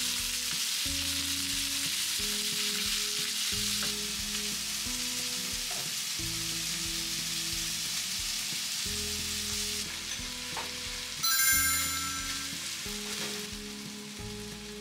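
Chicken sizzling in a frying pan with a steady hiss, the sizzle easing toward the end. About three-quarters of the way through comes one short, ringing metallic clink.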